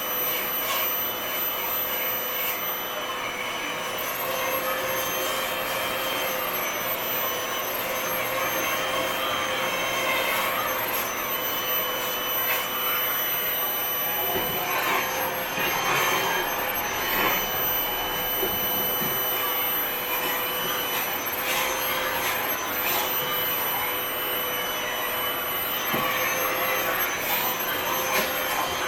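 Vacuum cleaner running steadily with a constant high motor whine, with a few short knocks and rustles over it.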